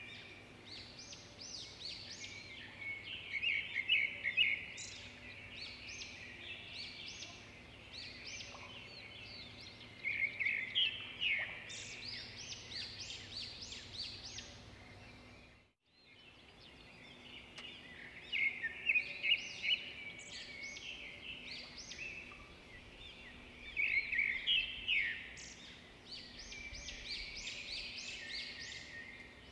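Small birds chirping and twittering in bursts, over a faint steady hum; the sound drops out briefly about halfway through.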